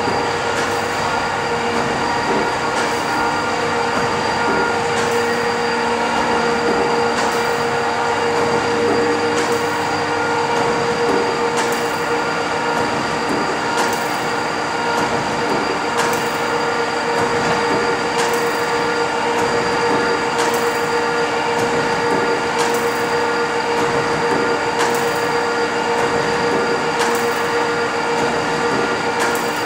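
A 1915 Crossley Brothers 150 hp single-cylinder horizontal gas engine running slowly: a steady mechanical hum with a sharp clack from the engine about every two seconds.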